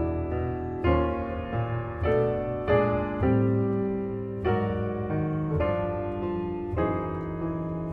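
Piano music, slow sustained chords, with a new chord struck about once a second.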